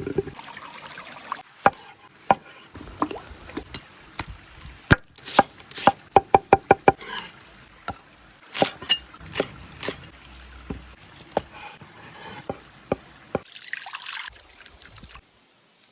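Knife chopping food on a cutting board: scattered sharp knocks, with a quick run of about eight chops a little past the middle.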